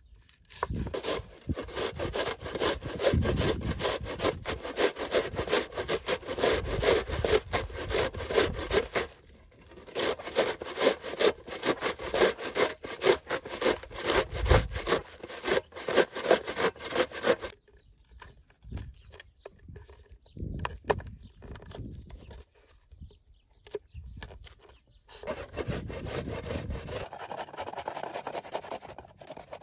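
Onion being grated on a stainless-steel grater plate: rapid rasping back-and-forth strokes in two long runs with a short break between them, then sparser scrapes and knocks.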